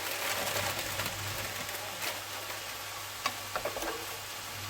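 Chinese rice vermicelli being stirred in a pot of boiling water: a steady bubbling hiss, with a few sharp clicks of the utensil against the pot about two and three seconds in.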